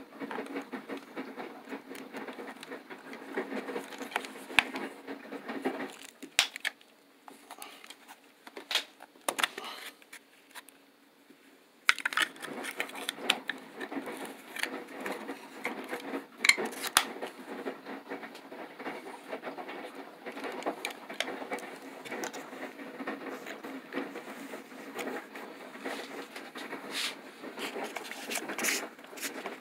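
Fingers handling a small plastic battery box: scratching, rustling and small clicks, with a few quieter seconds about a third of the way in.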